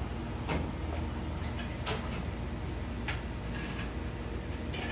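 Metal tongs clicking and tapping against a ceramic plate and a stainless wire rack tray while grilled beef slices are plated: about four short, sharp clicks spread through, over a steady low hum.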